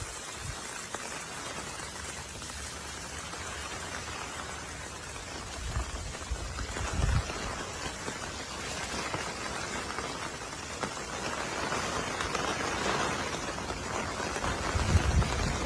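Rain falling, a steady pattering hiss, with a few brief low rumbles of wind on the microphone about six seconds in and near the end.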